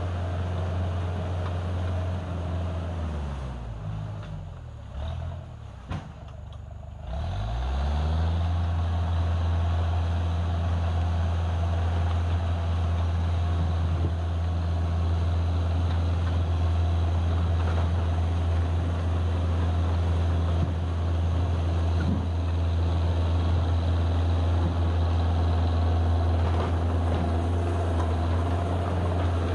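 Dresser 100G crawler track loader's engine running. About three seconds in the revs drop away for a few seconds, then come back up around eight seconds in, and the engine holds steady revs after that.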